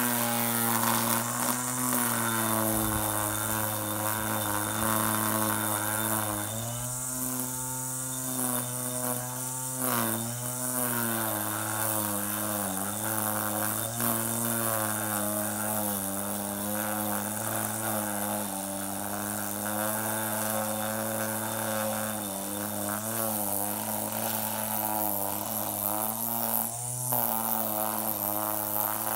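Electric string trimmer running steadily, its motor and spinning line giving a constant hum whose pitch dips briefly several times as the line bites into grass along the edge.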